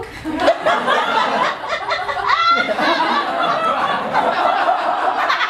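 Audience laughing, with a woman's voice heard over the laughter.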